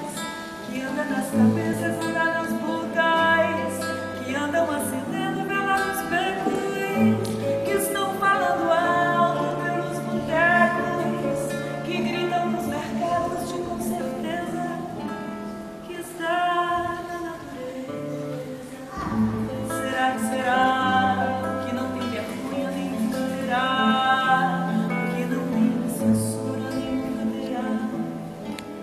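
A woman singing a song to her own classical guitar accompaniment, with sustained low bass notes underneath.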